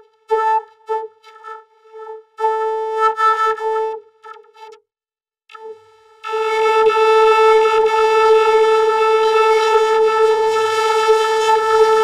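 A horn-like vocoded synthesizer tone with strong overtones and a fixed pitch. It cuts in and out in a choppy, glitchy stutter for the first five seconds, drops out briefly, then comes back about six seconds in and is held loud and unbroken.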